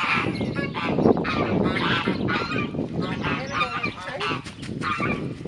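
A flock of poultry calling over one another, short pitched calls following each other without a break.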